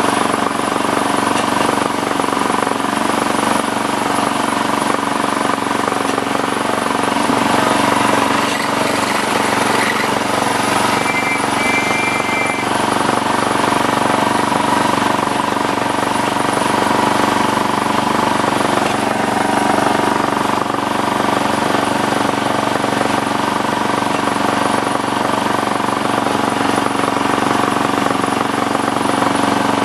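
A 7¼-inch gauge miniature train on the move, heard from aboard one of its coaches. Its wheels on the rails and its locomotive make a steady, unbroken drone. A short high two-note tone sounds about eleven seconds in.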